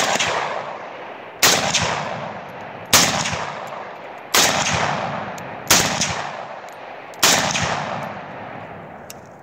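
Bulgarian AK-47S rifle in 7.62×39 firing six single shots, about one every second and a half, each trailing off in a long echo.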